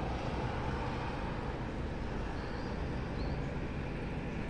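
Steady outdoor city ambience: a low, even hum of road traffic, with two faint high chirps a little past the middle.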